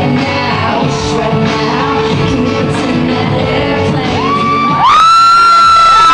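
Music with vocals playing loudly over a club's sound system. Near the end, someone close by lets out a loud, high-pitched held cheering scream that rises at the start, with a second cry overlapping it.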